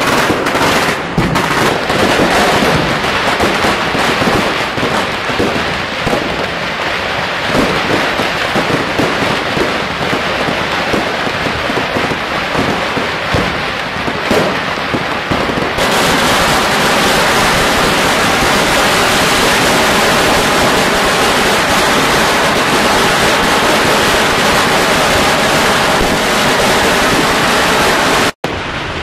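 Fireworks and firecrackers going off in a dense, continuous crackle, with scattered bangs in the first half. About halfway through it turns into an even, unbroken crackle, which cuts off abruptly near the end.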